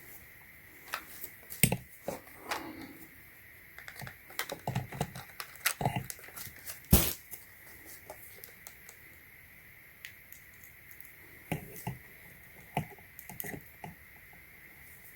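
Irregular clicks, taps and knocks of small objects being handled on a bench, loudest about 1.5 s and 7 s in, over a faint steady high-pitched tone.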